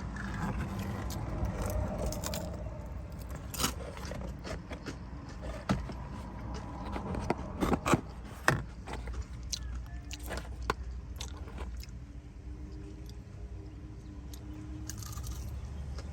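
Someone eating crispy fried chicken wings: bites and chewing with crunches, among scattered sharp clicks and scrapes from handling the food. A steady low hum runs underneath.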